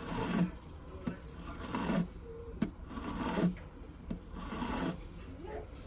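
Hand file scraping across the side of a gold ring's shank in about four slow strokes, roughly a second and a half apart, with a couple of light clicks between them as the file is lifted and set back on the metal.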